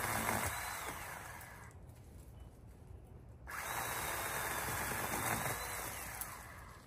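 A powered pole-mounted cutter runs as it cuts into brush, in two bursts. The first stops about a second and a half in, and the second starts about three and a half seconds in and fades out near the end.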